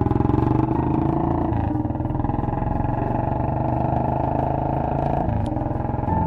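Motorcycle engine running steadily while riding, heard from on the moving bike, its pitch shifting about one and a half seconds in and again near the end.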